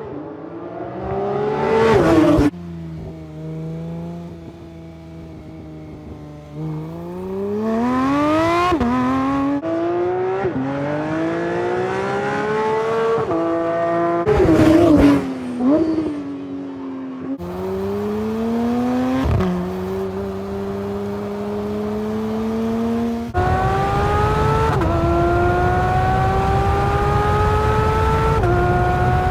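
Porsche 992 GT3's naturally aspirated flat-six engine and exhaust under hard acceleration. The pitch climbs steadily through each gear and drops sharply at each upshift, with some quick revs in between. The sound changes abruptly several times where separate passages are cut together.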